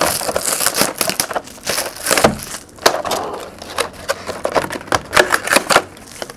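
Clear plastic shrink-wrap crinkling and a cardboard trading-card box being handled and tipped open: a dense, irregular run of crackles, taps and scrapes.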